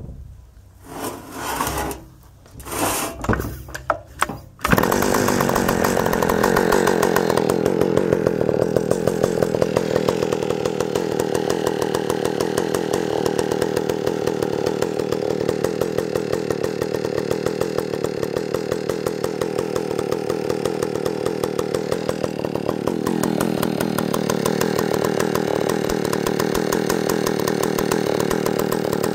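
John Deere 80EV (Echo 750EVL) two-stroke chainsaw being pull-started: several short pulls on the starter rope, then the engine catches just under five seconds in. It then runs on steadily at idle with a fast, even pulse.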